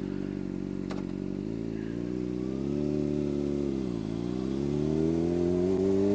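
Honda CBR600RR inline-four engine idling steadily, with a single click about a second in, then pulling away from a standstill. The revs rise, dip briefly about four seconds in at an upshift, and climb again.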